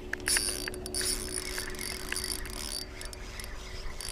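Fishing line hissing off the spool of a spinning reel during a cast, with a few light clicks. The hiss starts about a third of a second in and fades after about two and a half seconds. A steady low hum runs underneath.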